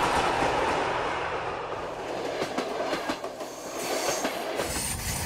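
A train passing close by: the rushing noise of the rolling cars, with the wheels clacking over the rail joints, a quick run of sharp clacks in the middle.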